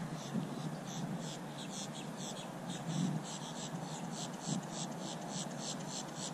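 An insect chirping in a steady, even rhythm of short high-pitched pulses, about five a second, over a low rumble.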